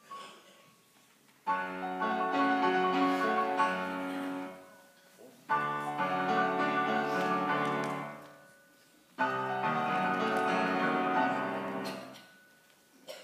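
Mixed choir singing with piano: three held phrases, each starting together and dying away into a short pause before the next.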